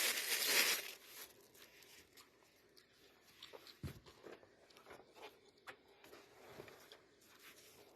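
Packaging crinkling and rustling, loud for about the first second, then faint scattered taps and rustles of handling.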